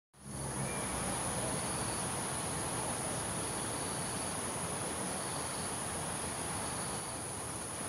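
Steady high-pitched drone of insects, with a fainter short note repeating about once a second over an even background hiss.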